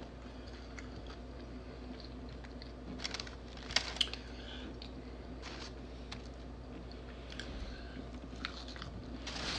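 Soft, close-up chewing and mouth sounds of a person eating, with a few small clicks and crunches around three to four seconds in and again near the end.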